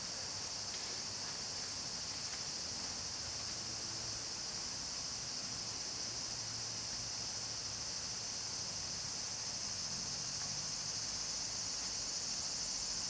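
A chorus of insects shrilling steadily in a high, even drone with no break.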